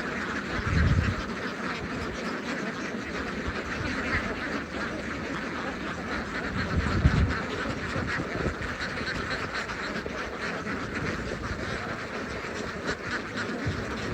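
A large flock of domestic ducks quacking together in a dense, continuous chorus, with brief low rumbles about a second in and again around seven seconds in.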